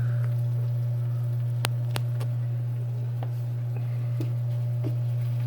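Steady low hum with a few sharp light clicks, the loudest two close together about two seconds in.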